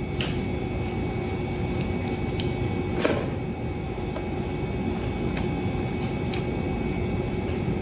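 A person slurping up instant noodles and chewing, with a few short wet clicks and smacks, the loudest about three seconds in, over a steady background hum.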